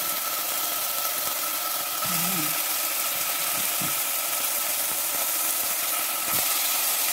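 Kimchi, onion and garlic frying in oil in a nonstick pot: a steady sizzling hiss with a thin steady whine beneath it. There is a short knock about six seconds in as the kimchi is stirred.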